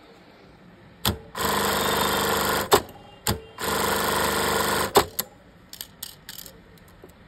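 Industrial lockstitch sewing machine running in two short, steady bursts of about a second each, each start and stop marked by a sharp mechanical click, then a few lighter clicks near the end.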